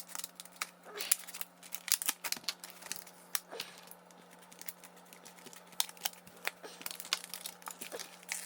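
Packaging of a power tool and battery being handled and opened: irregular clicks, taps and light rustles, thinning out for a couple of seconds in the middle, over a faint steady low hum.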